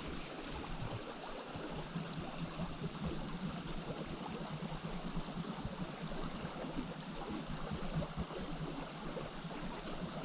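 Small rocky stream running steadily over stones and into plunge pools: a continuous wash of flowing water.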